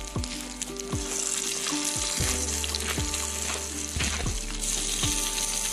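Pelmeni sizzling as they fry in an open pan, stirred with a spoon, under background music with a steady beat.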